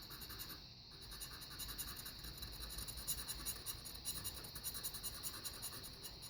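Knife blade scraping the coating off a lottery scratch-off ticket in rapid short strokes, with a brief pause about a second in.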